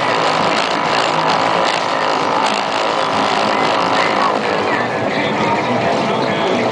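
NQD electric RC speedboat running at speed: a steady electric-motor whine over the hiss of rushing water.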